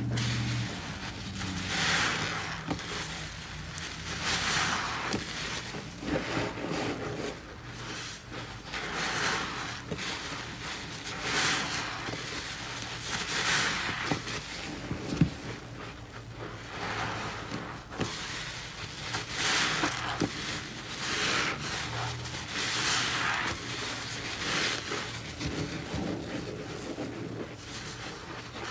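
A foam-loaded sponge squeezed and kneaded by gloved hands in a sink of thick cleaning-paste suds, squelching and crackling in repeated squeezes about every two seconds. A single sharp knock about halfway through.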